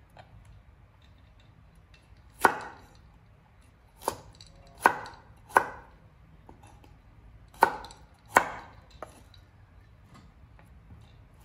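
Cleaver chopping vegetables on a wooden cutting board: six sharp knocks at uneven intervals, then a fainter one.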